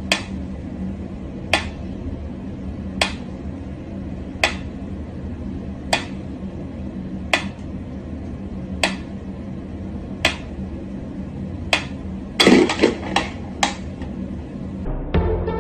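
Mechanical pendulum metronome ticking slowly, about one tick every second and a half. After about twelve seconds the ticking stops, and a quick cluster of several louder, sharper knocks follows.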